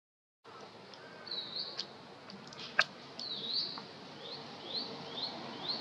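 A bird calling in short rising chirps, speeding into a run of about four quick chirps near the end. A single sharp click about three seconds in is the loudest sound, and the sound drops out completely for the first half second.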